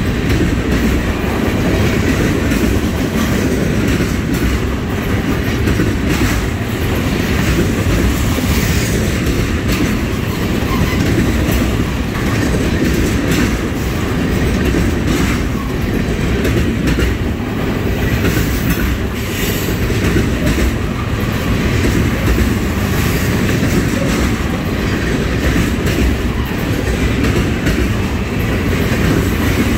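Freight cars carrying trash containers rolling past on steel wheels: a steady heavy rumble on the rails, with irregular clicks and clacks as the wheels pass over the track.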